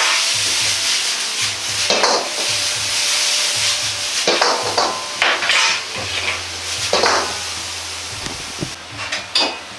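Bean sprouts and pork sizzling in an iron wok over a gas flame, with a metal ladle stirring and scraping through them every second or two. The sizzle eases a little near the end.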